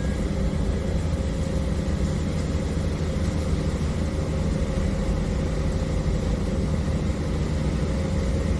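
An engine running steadily at an even speed, a low constant drone that neither rises nor falls.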